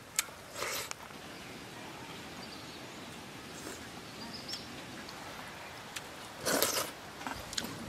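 Outdoor ambience, a steady hiss, with a faint chirp near the middle and a few short noisy bursts, the loudest about six and a half seconds in.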